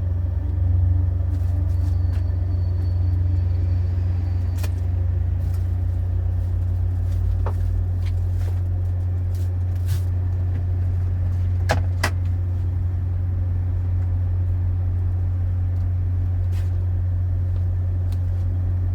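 Steady low rumble of a running motor, with a few faint clicks and taps.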